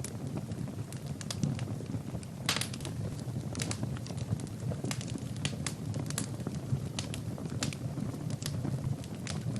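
Burning firewood in a fireplace crackling: irregular sharp pops and snaps over a steady low rush of flame. The biggest pop comes about two and a half seconds in.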